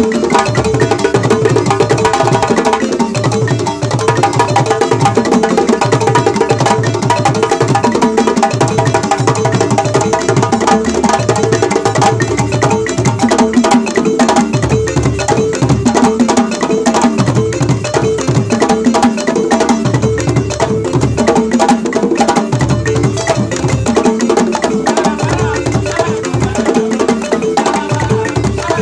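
West African percussion music: a balafon, a wooden-keyed xylophone, playing fast, busy runs of notes over hand drums, in an unbroken rhythm.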